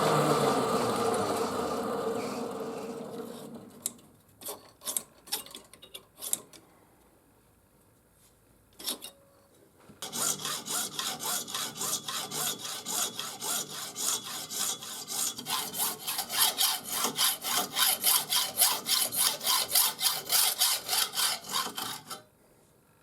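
A motor running down and fading away over the first few seconds, followed by a few sharp clicks. From about ten seconds in, a hand tool is worked back and forth in fast, even rasping strokes, about four a second, which stop abruptly near the end.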